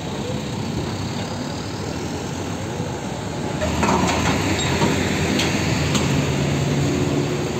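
Heavy-truck road traffic: a fuel tanker truck rolling past, then, a little over three seconds in, louder diesel engine and tyre noise as a Mitsubishi Fuso 6x2 tanker truck drives by. A steady low engine hum sets in over the last couple of seconds.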